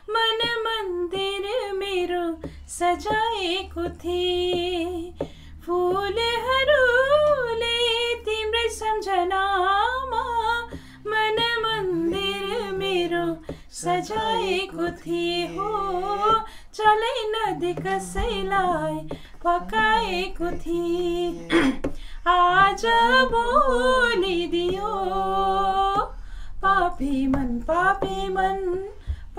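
A woman and a man singing a song together, the woman's higher voice carrying a wavering, held melody and the man's lower voice joining in places.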